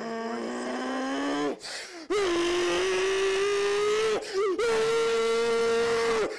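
A man's drawn-out scream in three long held notes, each higher in pitch than the last, with short breaks for breath about two and four seconds in.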